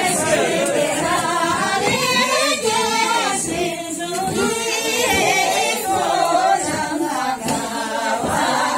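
A group of women singing together unaccompanied: a Tibetan circle-dance song sung by the dancers themselves as they move.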